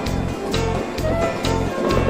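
Music with a steady beat of about two beats a second, with a bass line and held melody notes.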